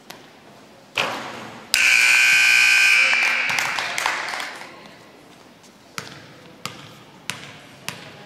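Gymnasium scoreboard buzzer sounding loud and steady for about a second and a half after a sudden noise, ringing on in the hall as it fades. Near the end a basketball is dribbled on the court, a bounce about every 0.6 seconds.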